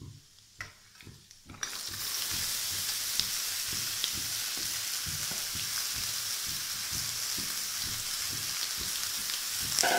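Sliced sarputiya gourd dropped into hot mustard oil in a kadhai: after about a second and a half of near quiet it breaks into a steady frying sizzle, with small crackles through it.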